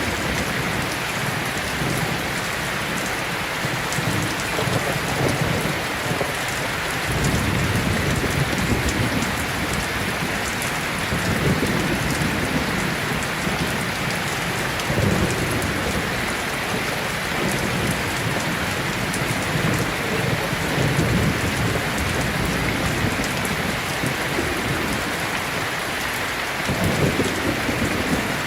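Steady rain falling, with low rolls of thunder swelling up several times.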